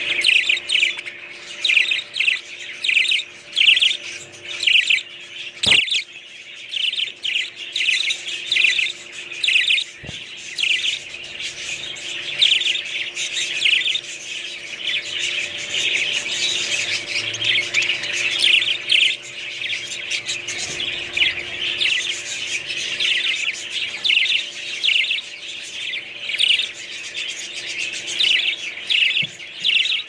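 Budgerigars chirping and warbling in rapid, continuous chatter, with one sharp click about six seconds in.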